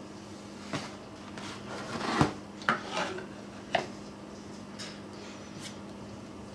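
Kydex cheek piece being handled and fitted onto a rifle's buttstock: a handful of light plastic clicks and knocks, the sharpest about two seconds in.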